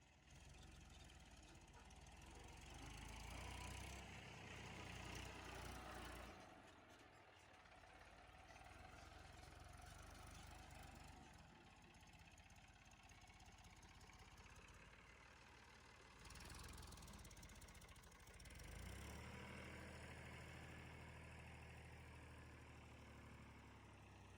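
Faint low hum of heavy machinery diesel engines running. The hum drops away for about ten seconds in the middle, then comes back.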